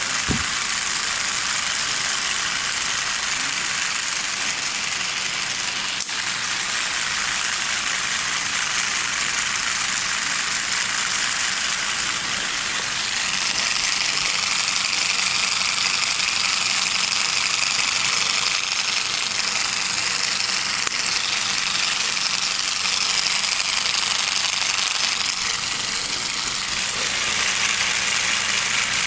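Home-built K'nex rotator running: a small electric motor driving six or seven stages of plastic reduction gears, making a steady, high-pitched whir.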